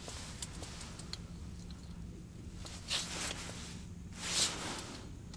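Two short hissing rustles about a second and a half apart, the second one louder, over a low steady hum, with a few faint clicks before them.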